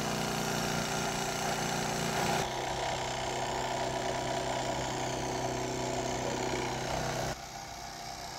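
Steady mechanical hum of a running motor, with its pitch and loudness shifting abruptly about two and a half seconds in and again near seven seconds, after which it is quieter.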